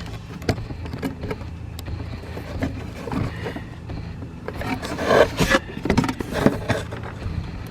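Plastic scraping and rustling with scattered clicks as a turn-signal bulb socket is twisted and worked loose from the lamp housing by hand.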